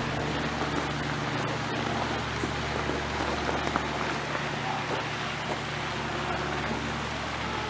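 Steady outdoor background noise: an even hiss with a low hum underneath.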